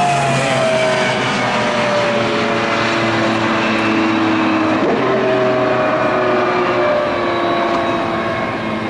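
IndyCar engines passing, the pitch of each sliding down as it goes by, with another car coming through about five seconds in.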